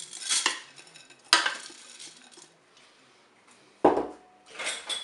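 Rinsed rice poured from a glass bowl into a Cookeo multicooker's nonstick inner pot, the grains hissing as they slide and scatter in the first half-second. Then two sharp knocks of the bowl on hard surfaces: one about a second and a half in and a louder one near four seconds with a brief ring.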